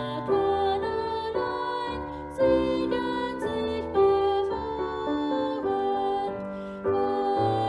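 Slow, gentle instrumental music of held chords with a simple melody moving above them.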